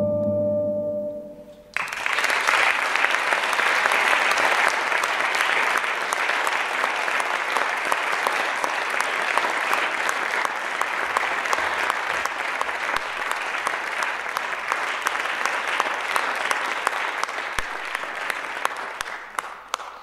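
The music ends on a held chord that fades out about a second in. A theatre audience then breaks into steady applause that dies away near the end.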